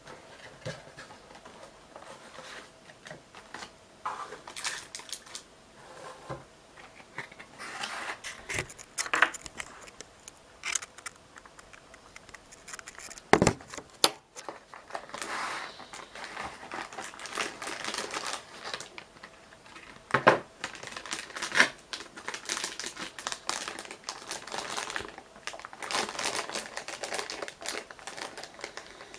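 A graphics card's cardboard box and packaging being handled and opened: irregular crinkling, rustling and tearing with scattered small clicks. Two sharp knocks stand out, about halfway through and again about two thirds of the way through.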